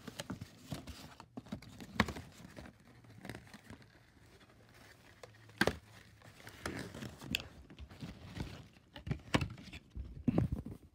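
Wrapping paper being torn and crumpled by hand as a present is unwrapped: irregular crinkling with a few sharp rips, the loudest about two seconds in.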